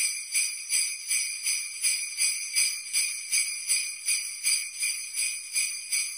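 Jingle bells shaken in a steady rhythm, about three shakes a second.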